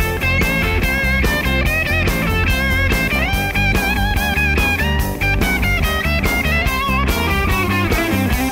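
Rock music: an electric guitar playing a bending lead melody over bass and a steady drum beat, an instrumental passage between sung lines.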